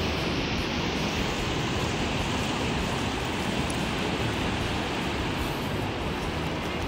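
Steady rushing wash of surf, with shallow waves running up onto a sandy beach.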